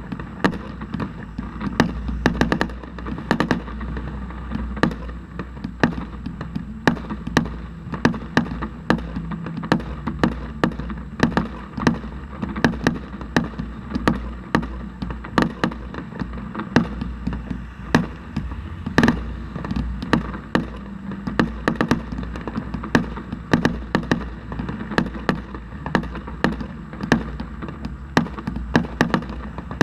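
Fireworks going off in rapid succession, several sharp bangs a second without a break, with one heavier bang about 19 seconds in.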